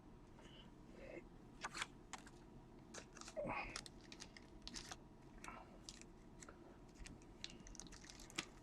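Trading cards being handled: faint, irregular clicks and rustles of card stock and packaging.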